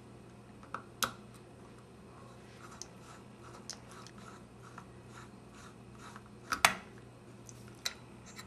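Small screwdriver working the slotted screws of a Bolex D8L 8mm camera's footage counter cover: faint scraping ticks, with a few sharp metallic clicks, the loudest about two-thirds of the way through.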